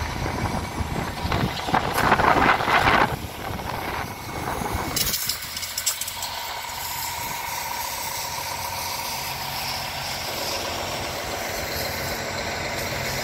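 Heavy truck's diesel engine running steadily, heard clearly from about five seconds in with a faint steady whine over a low hum. Before that, loud irregular rustling noise, loudest two to three seconds in.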